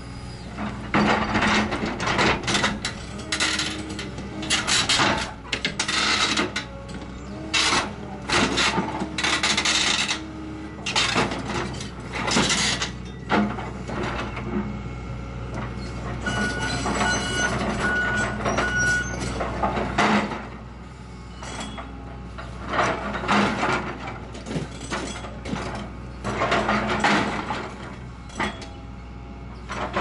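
Tracked excavator demolishing a scrap bulldozer: repeated crunching, clanking and scraping of steel as the bucket wrenches the dozer's track and frame apart, with a high metal squeal about halfway through, over the steady run of the excavator's diesel engine.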